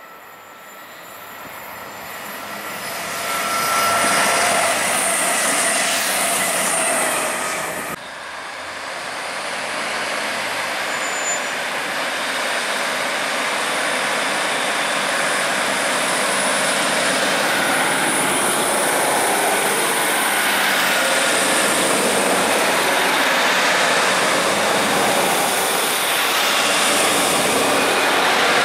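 A CrossCountry Voyager diesel multiple unit approaching, growing louder over the first four seconds. After a sudden cut about 8 seconds in, a Northern Class 156 diesel multiple unit coupled to a Class 150 runs past close by with steady, loud engine and wheel noise, and a brief high squeal about three seconds after the cut.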